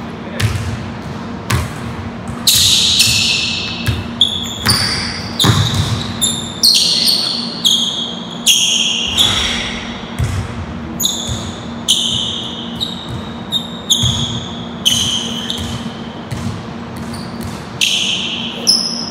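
Basketball dribbling on a hardwood gym floor, with repeated thuds of the ball and frequent short high-pitched squeaks of sneakers as the players cut and shuffle. A steady low hum runs underneath.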